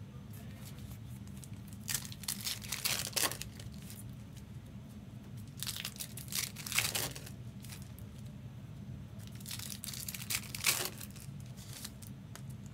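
Trading-card pack wrappers being crinkled and torn open, in three short bouts about two, six and ten seconds in.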